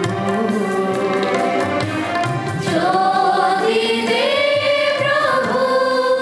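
Voices singing a hymn to a drum beat; about three seconds in the drum strokes fade and the voices hold long, sliding notes.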